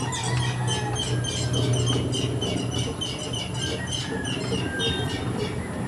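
A bird chirping rapidly, a quick run of short high chirps about four or five a second that stops near the end, over a steady low hum.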